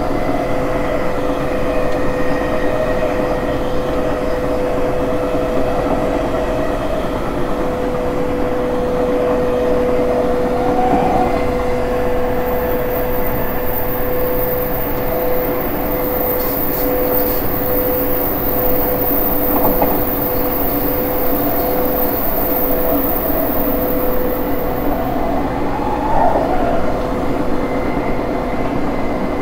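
E231 series 1000 commuter train running, heard at the gangway plates between cars: steady running and rail noise with a constant tone from its unrenewed Hitachi IGBT-VVVF inverter. A very high, thin whine joins about twelve seconds in and stops about thirteen seconds later.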